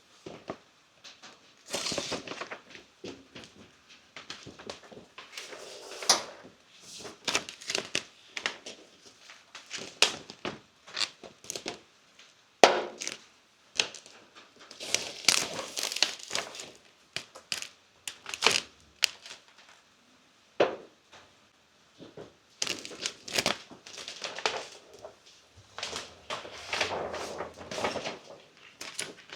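Vinyl wrap film and its backing being handled and crumpled, in irregular crinkling, crackling bursts with short pauses between.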